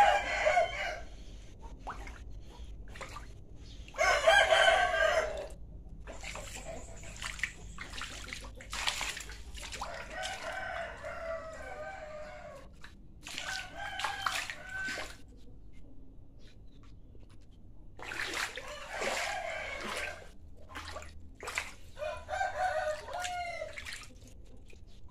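Roosters crowing again and again, about six crows of a second or two each, with faint clicks between them.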